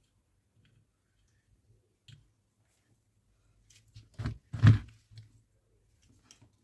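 Two dull knocks about half a second apart, a little past the middle, with a few faint clicks before and after, as parts or tools are handled on a workbench during a cordless vacuum battery repair. A faint low hum sits under it.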